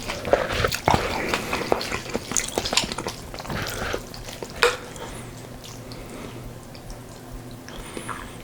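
A spoon stirring and scraping in a bowl of yukgaejang soup, mixing in rice, with frequent clinks against the bowl; one sharp clink about four and a half seconds in, then only faint clicks.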